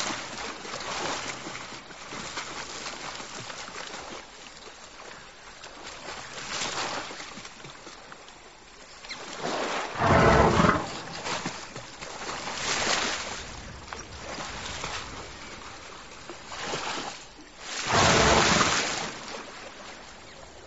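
African elephant calling twice, each call about a second long, the first about ten seconds in and the second near the end, over a steady hiss of background noise.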